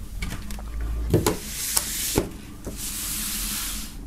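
Handling noise from paper record sleeves and a cardboard album jacket being moved on a wooden table: a few light knocks, then a steady rustling, sliding hiss in the second half.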